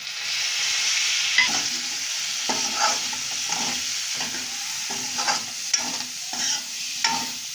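Vegetables frying and sizzling in hot mustard oil in a kadhai, with freshly added chopped tomatoes. A steel spoon stirs them, scraping and clinking against the pan in irregular strokes.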